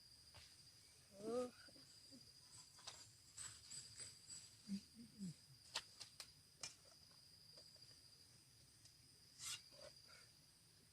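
Near silence with a faint, steady, high-pitched insect drone, most likely crickets. A few soft ticks and one brief short call about a second in sit over it.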